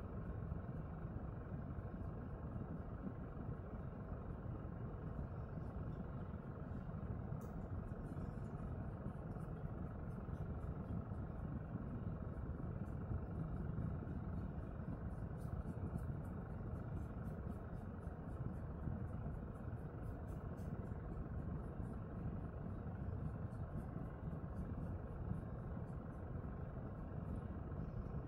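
Steady low background noise, even and unbroken, with faint light ticks and scratches in the middle stretch as hands rub a dog's fur.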